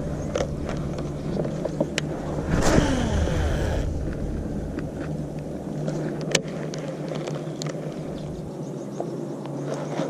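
Clicks and rattles from handling a baitcasting rod and reel, with a brief falling whirr about two and a half seconds in, over a steady low rumble.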